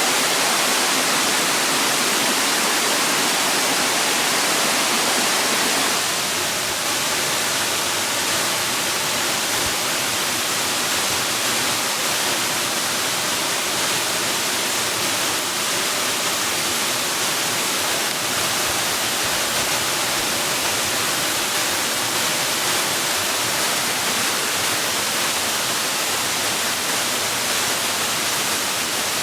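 Steady rushing of falling water, an even hiss with most of its weight in the upper range. It drops slightly in level about six seconds in.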